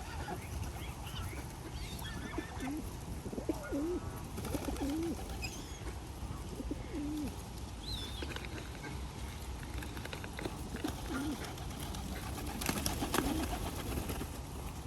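Pigeons cooing again and again, low rising-and-falling calls, with a few faint higher bird chirps over a steady low background rumble.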